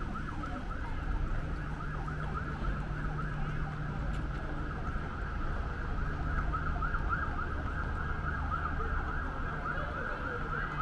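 Emergency vehicle siren in a fast yelp: rapid rising whoops, about three a second, over a steady low hum.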